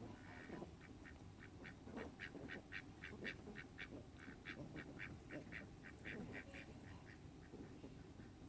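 Ducks quacking softly in a rapid, steady string of short calls, about four a second.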